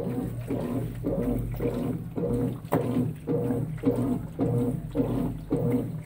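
Consul 16 kg top-load washing machine agitating a duvet in soapy water. The impeller swings back and forth about twice a second, giving a rhythmic swish of water with a motor note on each stroke.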